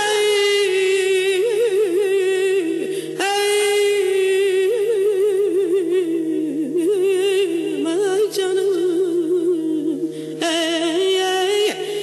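A solo voice singing a slow, ornamented melody with a fast wavering pitch, over a steady low drone.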